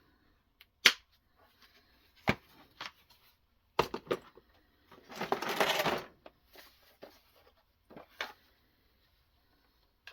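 Clicks and knocks of a guided knife-sharpening setup being handled, with one rough scraping sound about a second long midway through.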